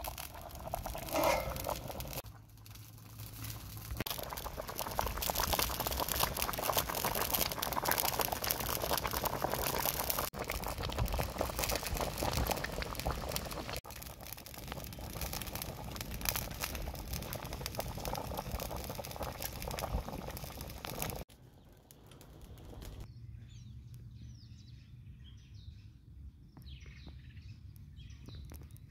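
Chicken pieces boiling hard in broth in a metal wok over a charcoal fire, with dense, crackly bubbling. About two-thirds of the way through it cuts off abruptly, and a quieter background of birds chirping follows.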